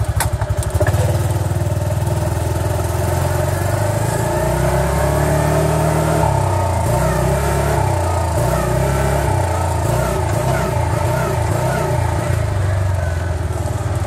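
Vector 500 4x4 UTV's engine pulling away and speeding up, then from about halfway its pitch wavers up and down over and over as the engine governor kicks in and out, because the driver's seat belt is unbuckled.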